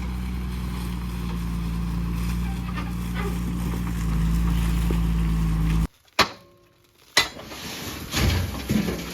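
Heavy diesel engine of earthmoving machinery running steadily, getting louder about four seconds in, then cutting off abruptly about two thirds of the way through. Two sharp clicks follow about a second apart, then quieter, uneven sounds.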